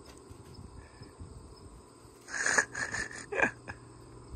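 Steady chirring of insects, crickets by the sound, with a few short louder sounds about two to three and a half seconds in, the last one gliding down in pitch.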